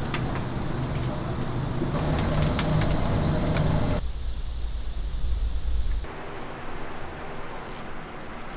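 Street traffic noise with a low rumble and scattered clicks, changing abruptly about four seconds in and again about six seconds in, where it drops to a quieter background.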